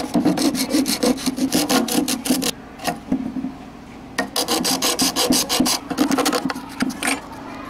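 A hacksaw blade sawing into the glued seam of a plastic phone charger casing to split it open: quick, even back-and-forth rasping strokes in two spells, with a short pause in the middle.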